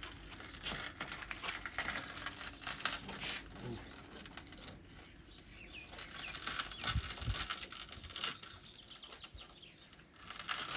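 Shattered car window glass crackling and tinkling as it crumbles and is worked out of its frame, in a dense run of small crunches, lighter towards the middle.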